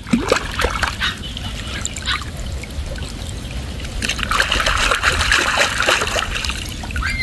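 Water splashing and trickling as hands grope and scoop through mud under shallow water, with a stretch of heavier splashing from about four to six seconds in.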